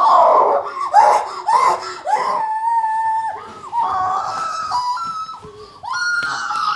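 Two women laughing and squealing in high-pitched shrieks during a playful tussle, with one long held squeal in the middle.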